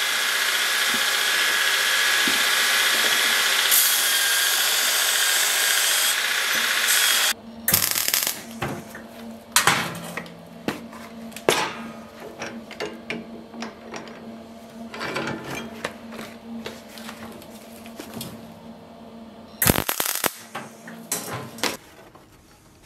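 An abrasive-belt surface grinder grinding flat steel pieces held on its magnetic table: a steady, loud grinding hiss with a faint high whine. It cuts off sharply about seven seconds in, followed by scattered metal clanks and taps over a steady low hum.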